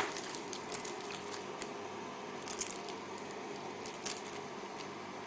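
Faint scattered clicks and rustling of handling, several of them in small clusters, over a low steady hum.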